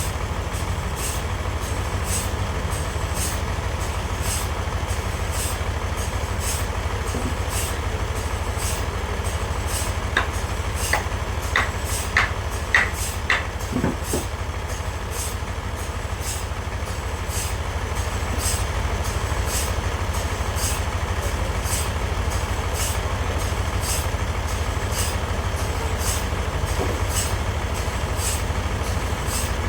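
Sawmill machinery running steadily with a deep engine hum and a regular high tick about twice a second. A run of about six sharp knocks comes in the middle.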